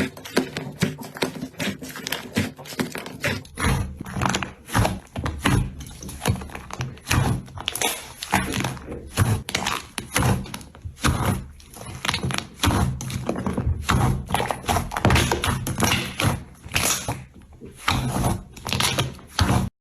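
Slime being squeezed and poked by hand, giving a dense, irregular run of sticky clicks, pops and squelches that cuts off suddenly at the end.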